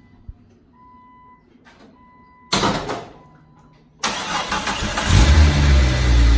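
Jeep Cherokee XJ engine being started: after a brief loud burst about two and a half seconds in, it cranks and catches about a second and a half later, then settles into a loud, steady idle. Faint dashboard chime beeps before the start.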